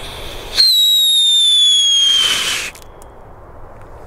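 A Leslie Luftpfeifer, a small whistling rocket sold as children's firework, takes off about half a second in. It gives one short whistle lasting about two seconds that slowly falls in pitch, then ends in a brief hiss.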